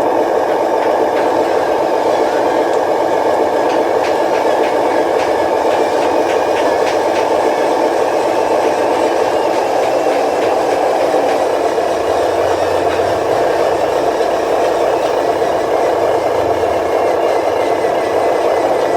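Radio-controlled construction vehicle running with a steady, rattling engine-like sound, with a few light ticks a few seconds in.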